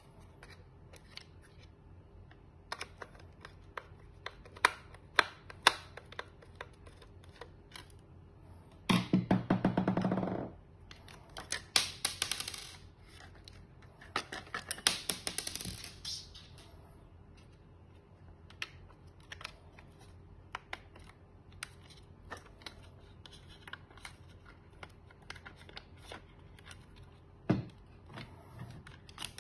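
Scattered light clicks and taps of small hard parts being handled. About nine seconds in comes a short buzz lasting about a second and a half, followed by two rasping, scraping stretches of a couple of seconds each.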